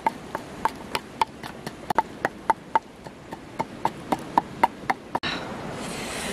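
Wooden pestle knocking into a small wooden mortar in a steady pounding rhythm, about three to four sharp knocks a second. The knocks stop about five seconds in and give way to a steady hiss.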